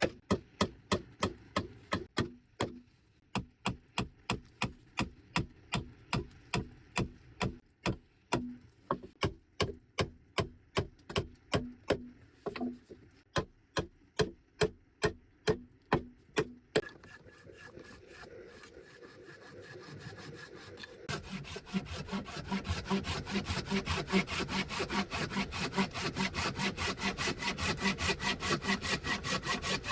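Wood being sawn by hand in steady, regular strokes, about two to three a second. After a brief lull about two-thirds of the way through, the sawing resumes louder and faster.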